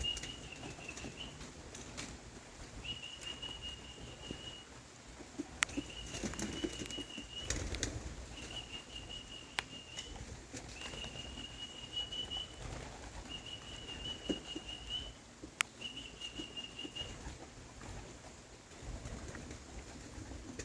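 Young homing pigeons flapping their wings around the loft, with sharp clicks scattered through. A high, steady tone sounds seven times, each about a second and a half long, at an even pace.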